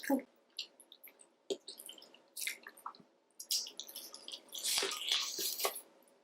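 Close-miked wet eating sounds: irregular smacking and chewing of sauce-coated seafood. Short wet clicks come and go, with a busier stretch of wet mouth noise about four and a half seconds in.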